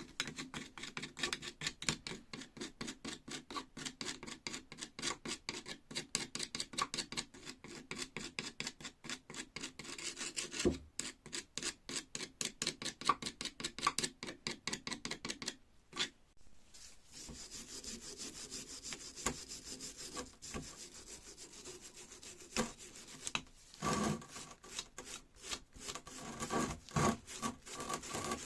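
Quick back-and-forth rubbing strokes on the rusty metal of an old hydraulic jack, several a second, breaking off about halfway through. Slower, irregular scraping with a few knocks follows.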